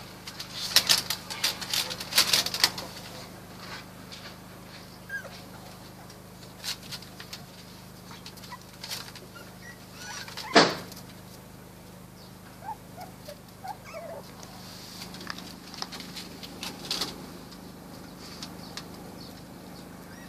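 Puppies barking and whimpering in short calls, with one loud sharp bark about halfway through. A cluster of clicks and taps in the first few seconds, over a faint steady hum.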